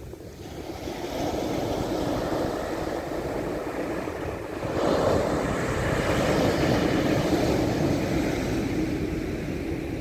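Waves from a long-period swell breaking on a sandy beach, with foam washing up the sand. The surf swells about a second in, and a louder wave breaks about five seconds in.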